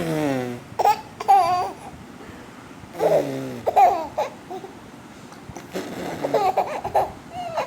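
An adult makes a silly vocal sound that slides down in pitch, and a baby answers with high squealing laughter; this happens twice, then the baby laughs and babbles again near the end.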